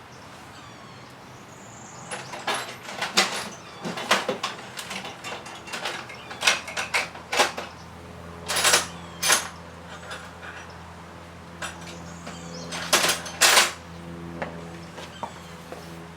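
Wrench and socket clinking and knocking against metal in irregular sharp strikes while the motorcycle's exhaust pipe mount bolt is worked loose. A steady low hum comes in about halfway.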